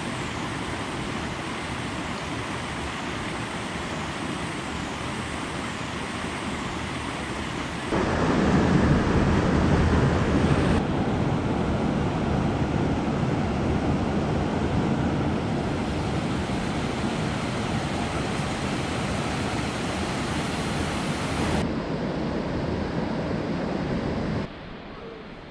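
Steady rush of a shallow rocky river running over stones and boulders. The sound jumps abruptly louder about eight seconds in, then steps down again a couple of times, the last time near the end.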